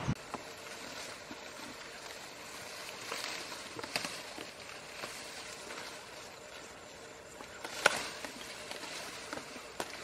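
Grass and brush rustling, with scattered sharp snaps of stems; one louder snap comes about two-thirds of the way in, over a steady outdoor hiss.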